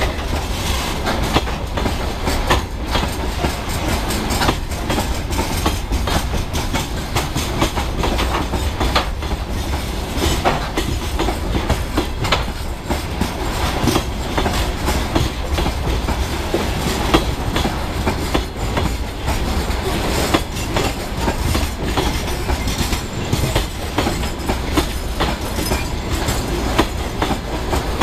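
Freight train of open-top gondola wagons rolling past close by: a steady rumble of wheels on rail with frequent knocks and clatter as the wheels cross rail joints.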